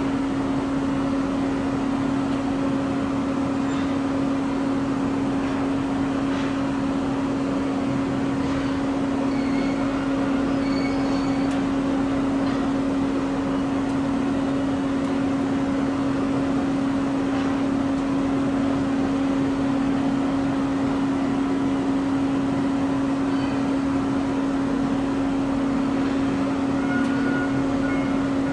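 Steady machine drone around a parked jet airliner at the stand, with one constant low hum over a broad hiss. A few faint short beeps sound around the middle, and a faint repeated beep comes near the end.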